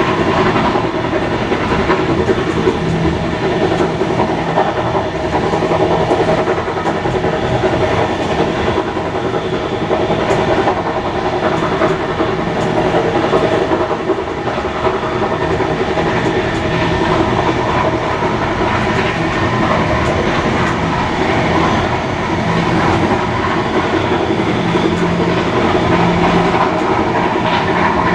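A steam-hauled heritage passenger train running steadily along the line, its carriage wheels clicking over the rail joints.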